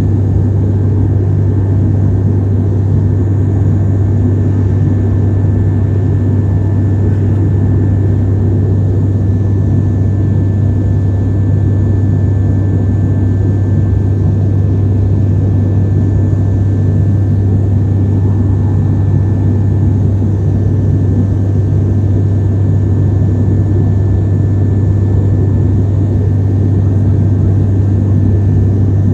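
Aeroplane in flight: a loud, steady drone of engines and rushing air with a strong low hum and a faint steady high tone, unchanging throughout.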